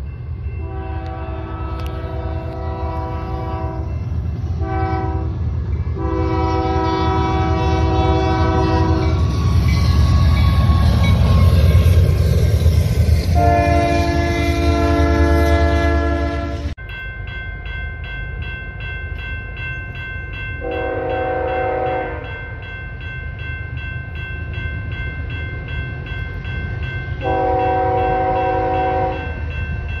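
Union Pacific diesel locomotive air horns sounding a series of long and short blasts, the pattern of a grade-crossing warning, over the low rumble of the locomotives and passing freight cars.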